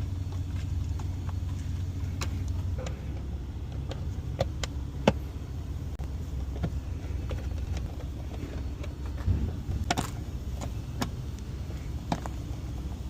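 Scattered sharp clicks and knocks of hands and tools working on the air filter housing, the sharpest about five seconds in and a small cluster near ten seconds, over a steady low hum.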